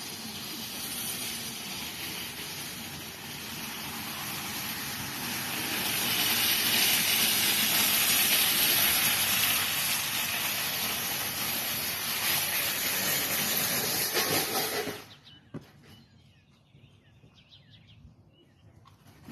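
Steady rushing, hissing noise of a bicycle towing a shopping cart in motion, growing louder about six seconds in, then cutting off sharply about fifteen seconds in, leaving a much quieter stretch.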